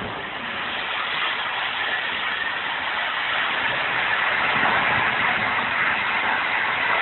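Jet fire of burning natural gas from a natural-gas-fuelled garbage truck: a steady, hissing rush of noise that slowly grows louder.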